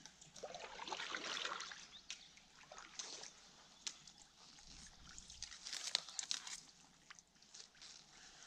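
Kayak paddle working calm water: irregular sloshing splashes and water trickling and dripping off the blade.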